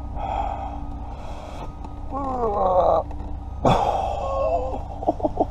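A man's strained, falling groan while forcing a stuck part, over a steady low hum. A sharp sound comes about 3.7 seconds in, then a quick run of short pulses near the end.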